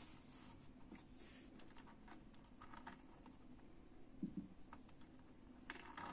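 Faint handling sounds of macramé thread being pulled and knotted by hand: small ticks and short rustles, with a soft double knock about four seconds in.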